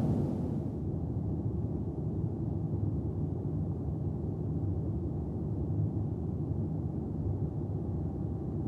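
Steady low rumble of a Boeing 787-9's cabin in flight: airflow and engine noise heard from a window seat. A brief click at the very start.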